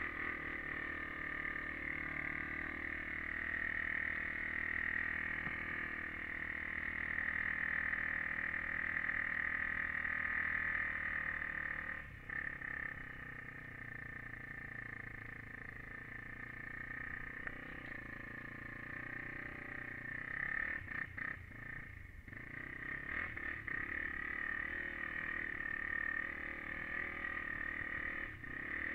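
Honda 400EX quad's single-cylinder four-stroke engine running steadily under way, heard muffled from a helmet-mounted camera. The engine note eases off about twelve seconds in and wavers briefly a few times later on.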